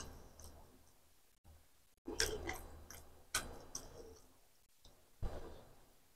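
Close-miked mouth sounds of a person chewing egg masala: a series of wet smacks and clicks, spaced roughly half a second to a second apart, after a lull of about a second and a half.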